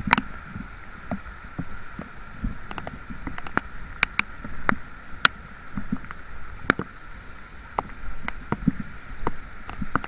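Small boat underway on the water: a steady hum over a low rumble, with many irregular taps and splashes.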